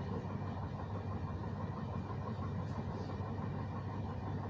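Running noise of a passenger train heard from inside the carriage while moving: a steady low rumble of wheels on the rails.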